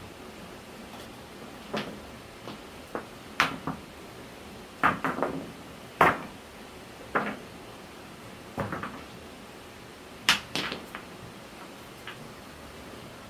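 Stones knocking together as loose rocks are picked up and set down, a sharp clack every second or so at irregular intervals, sometimes two or three in quick succession.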